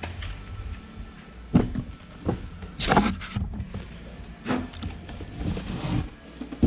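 A few knocks and short noisy handling sounds, the biggest about three seconds in, over a faint steady high-pitched whine.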